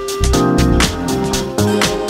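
House track with a funk feel: a steady electronic drum beat with crisp hi-hats over a looping bassline.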